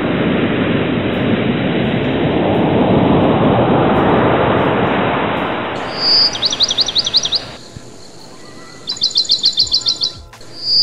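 A loud rushing wash of noise that swells and then fades over the first seven seconds or so, then a bird calling in three quick runs of sharp, high, falling chirps, each run about a second long, starting about six seconds in.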